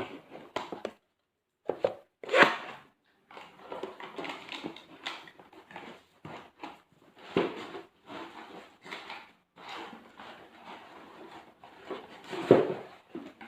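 Paper and cardboard packaging rustling and crinkling as a parcel is opened by hand, with two sharper knocks of the box being handled, one a couple of seconds in and a louder one near the end.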